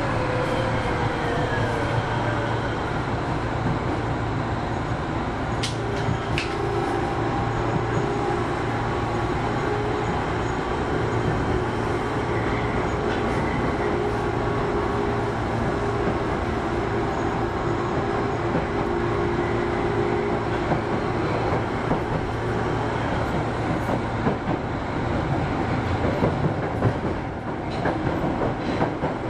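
Osaka Metro 25 series subway train running through a tunnel, a steady rumble with a low hum. A falling whine in the first few seconds, and two sharp clicks about six seconds in.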